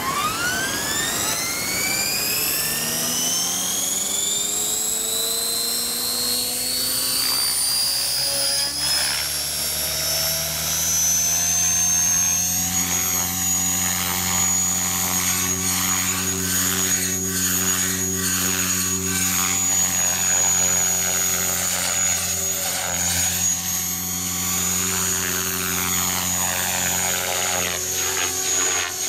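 Radio-controlled model helicopter spooling up: a whine rising steeply in pitch over roughly the first ten seconds, then holding steady as a high whine over a rotor hum while it lifts off and flies around.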